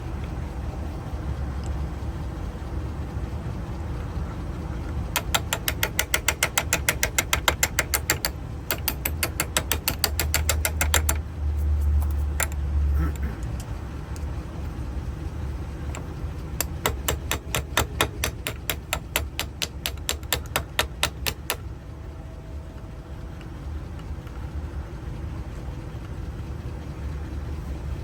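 Rapid, even light tapping on metal, about six taps a second, in three runs of a few seconds each, as a corroded, stuck trunk lock part is tapped loose. A steady low hum runs underneath.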